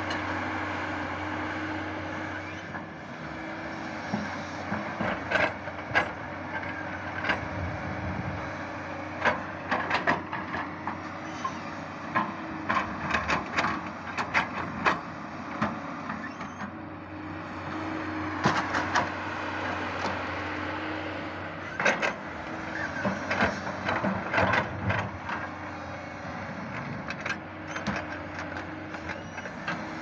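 JCB JS215 tracked excavator's diesel engine running steadily while it digs and shifts snow, with repeated sharp clanks and knocks from the working machine in two busy spells.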